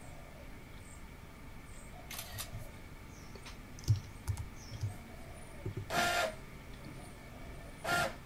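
Epson thermal receipt printer printing a pasted block of text in short whirring bursts: three bursts of well under a second, the longest and loudest about six seconds in with a steady motor whine in it. A few soft low knocks come just before it.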